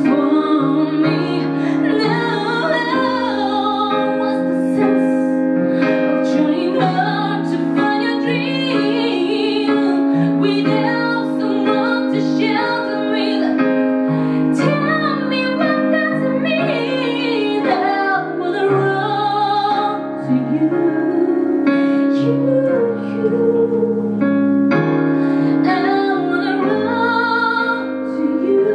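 A woman singing a slow ballad into a microphone, accompanying herself with sustained chords on a Korg electric keyboard.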